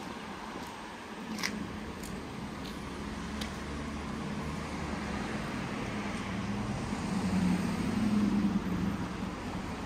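Street traffic noise, steady, with a vehicle's low rumble swelling about seven seconds in and easing off near the end.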